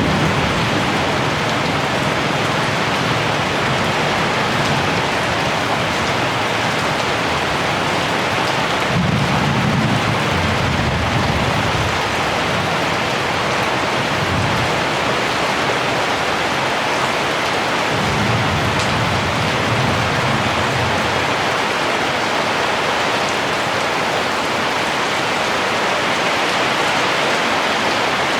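Heavy rain falling steadily, with low rolls of distant thunder, the strongest about nine seconds in and another around eighteen seconds in.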